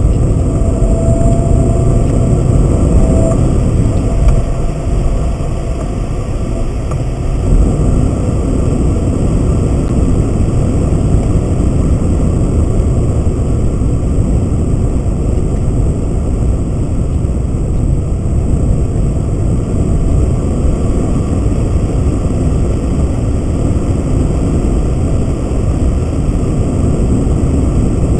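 Steady engine and tyre road noise inside a car driving along a winding road, heavy in the low end. About seven seconds in the noise evens out, where the recording runs at double speed.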